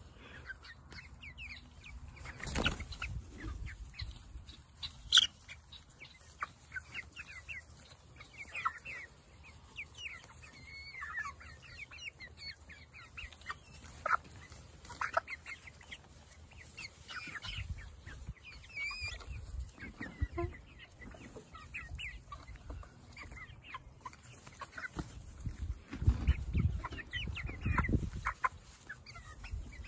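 A flock of young chickens cheeping and clucking excitedly as they crowd in to be hand-fed grapes, a busy run of short high chirps throughout, with a few bursts of low rumble.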